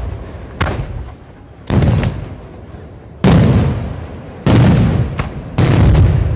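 Aerial firework shells bursting: four loud booms about a second apart, each fading slowly, with two smaller, sharper cracks among them.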